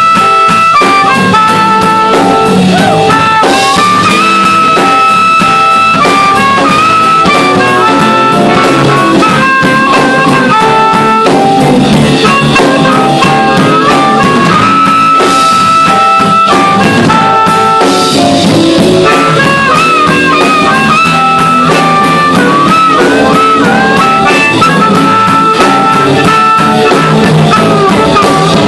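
Live blues band playing an instrumental break: a harmonica solo of held, bending notes over piano, electric guitar and drum kit.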